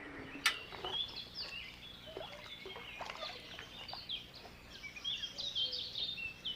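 Songbirds singing: a run of short, varied chirps and quick sweeping notes, with one sharp click about half a second in.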